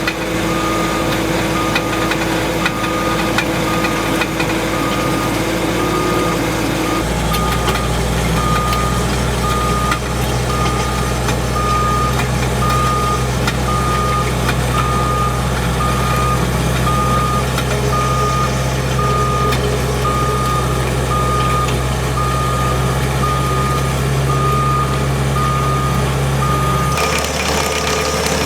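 Skid steer engine running under load while it reverses, trenching, with its backup alarm beeping steadily at an even pace. The engine note shifts about seven seconds in and again near the end.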